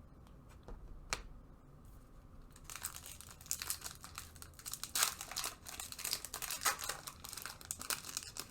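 A trading card pack's foil wrapper being crinkled and torn open: a few light clicks, then from about three seconds in a dense, crackly crinkling that keeps going.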